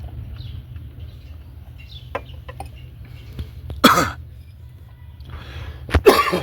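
A man coughing hard twice, about four seconds in and again near the end, the second cough the louder, with faint eating clicks before them.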